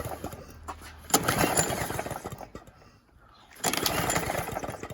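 Two pulls on an old four-stroke petrol lawn mower's recoil starter, about two and a half seconds apart, the engine turning over with its spark plug out but not firing: the ignition is giving no spark.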